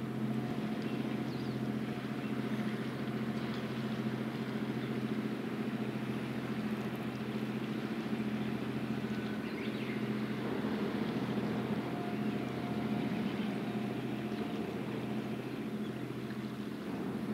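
Steady low hum of the helicopter destroyer JS Kaga's machinery as the ship passes close by, over a haze of water noise from its hull.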